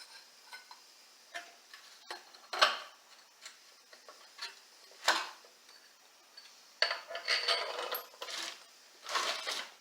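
Steel pieces of a wheel bearing press tool set clinking and knocking against each other as they are handled and fitted together, in scattered single clinks with a longer rattle about seven seconds in.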